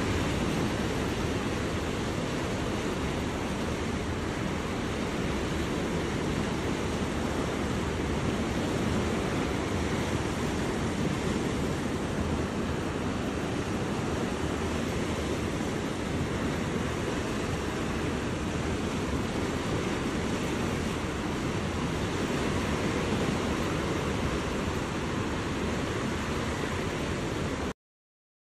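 Steady rushing of a flood-swollen river's fast, churning water, with no change in level, cutting off suddenly near the end.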